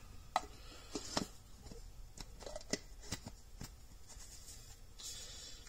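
Plastic lid being fitted and pressed onto the barrel of a one-pound National Geographic starter rock tumbler, loaded with rocks, grit and water: a string of light clicks and knocks, then a short rustle near the end.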